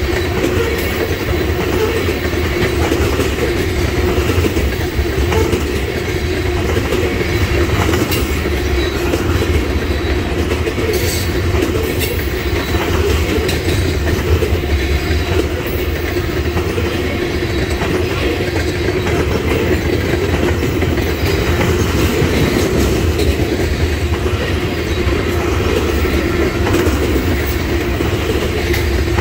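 Railroad tank cars of a freight train rolling steadily past, steel wheels rumbling on the rails with a few sharp clicks about a third of the way in.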